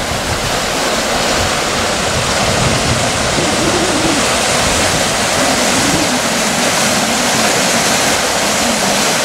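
Flooded creek rushing fast over its bed, muddy water breaking in standing waves and whitewater: a loud, steady rushing noise. The creek is running in flash flood after heavy rain.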